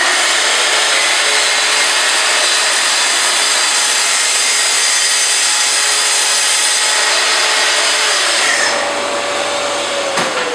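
Festool TS55R plunge-cut circular saw cutting through a thick formica-covered worktop, a loud steady cutting noise. Near the end the blade breaks through and the saw runs free, then it is switched off with a click and the motor winds down in a falling whine.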